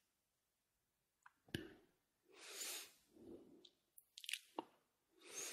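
Near silence with a few faint mouth clicks and two soft breaths from the speaker between phrases of a spoken guided meditation.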